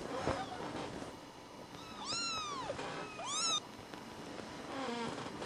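Kittens about three and a half weeks old mewing: a long high arching mew about two seconds in, a shorter one right after it, and a fainter, lower falling call near the end. A brief soft bump comes at the very start.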